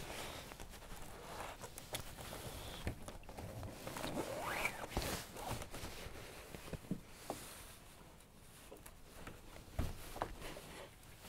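Thin cord rasping and rubbing as it is pulled tight and knotted around a wooden shed beam, with scattered light knocks and a short rising squeak about four seconds in.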